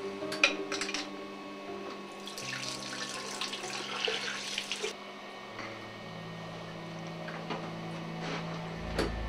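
Water running from a tap for about two and a half seconds, then shut off sharply, with a few clicks near the start and near the end.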